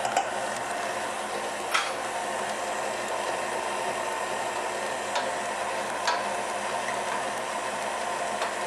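Electric stand mixer running steadily, its motor humming as it mixes a batter in the metal bowl, with a few light clicks.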